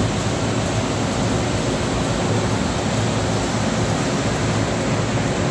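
Steady rushing noise of running factory machinery, with a low hum underneath.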